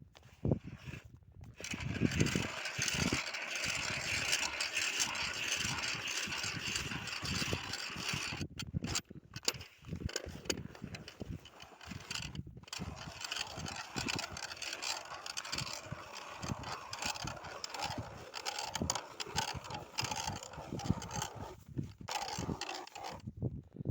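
Ice auger cutting a hole through lake ice: a steady grinding crunch of the blades in the ice, stopping briefly three or four times.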